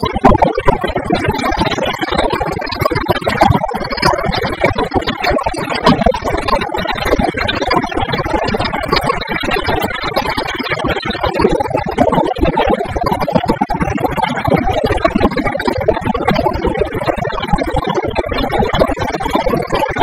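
Continuous background music, loud and steady with a dense, busy texture.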